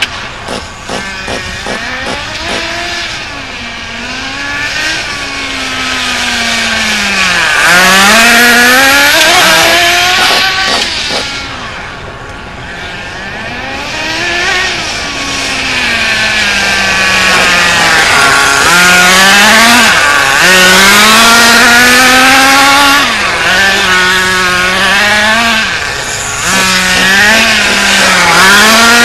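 Small two-stroke nitro engine of a Smartech RC buggy revving up and down over and over as the buggy accelerates and slows, its pitch rising and falling in sweeps every second or few.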